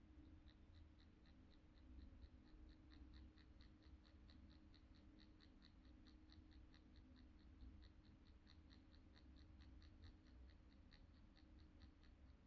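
Permanent-makeup machine running with a faint steady hum while its needle packs pigment in pendulum strokes, with a light, even ticking about four to five times a second.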